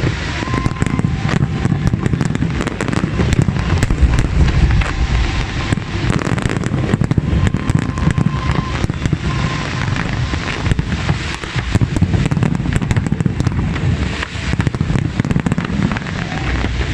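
Dense fireworks barrage: many aerial shells bursting in quick succession, a constant rattle of sharp pops and cracks over a continuous low rumble.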